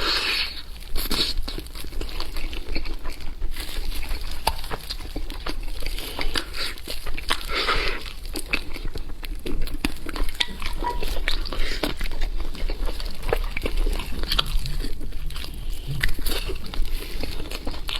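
Close-miked eating: wet chewing and lip-smacking, with many quick clicks and a few denser bursts of mouth noise.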